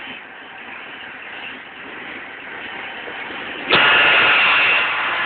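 Approaching diesel locomotive with its engine running. About three-quarters of the way in, its horn starts suddenly, loud and steady.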